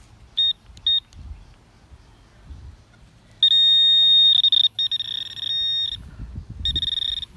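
Garrett pinpointer beeping with a high electronic tone as it is held over a buried metal target: two short beeps, then a long warbling tone lasting over two seconds, then one more beep near the end. The sound means it is right on the metal object in the hole.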